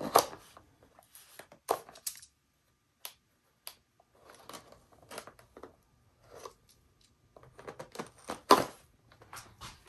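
Package being opened by hand: scattered rustling, tearing and clicking of packaging, with the loudest handling noises at the very start and about eight and a half seconds in.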